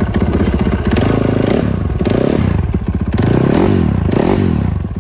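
Dirt bike engine running in place, blipped about four times so the revs rise and fall quickly.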